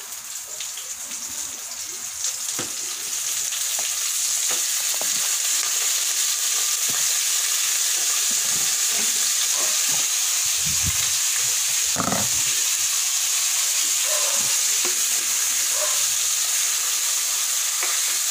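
Chicken pieces frying in hot oil in a wok, a steady sizzle that grows louder over the first few seconds as the chicken goes in, then holds. Scattered clicks and scrapes of a spatula stirring the pan.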